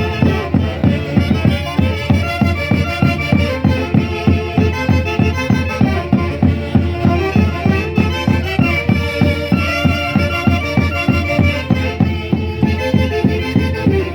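Andean folk dance music played by a band, with wind instruments carrying the melody over a steady, pulsing beat.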